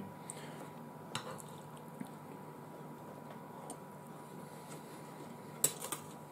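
Cutlery clinking lightly on a plate: a few faint clicks, the sharpest pair about five and a half seconds in.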